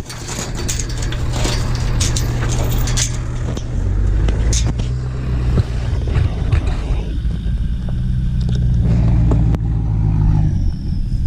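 Vehicle engine running as it drives, a steady low hum that shifts in pitch and strength a few times, with a few knocks and rattles early on.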